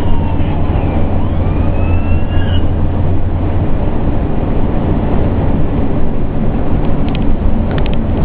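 Pierce Enforcer fire engine heard from inside its cab: the siren wails up and down over the loud, steady drone of the diesel engine and road noise. The siren fades out about two and a half seconds in, leaving the engine and tyre rumble, with a few faint clicks near the end.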